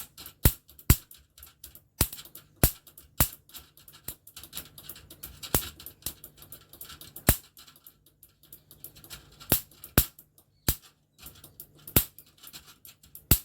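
Electric mosquito bat's high-voltage grid being shorted, giving sharp spark snaps at irregular intervals, a few tenths of a second to about two seconds apart. The snapping shows that the repaired circuit is producing high voltage.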